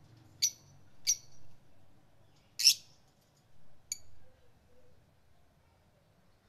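Fischer's lovebirds giving four short, high-pitched chirps within about four seconds, the third the loudest.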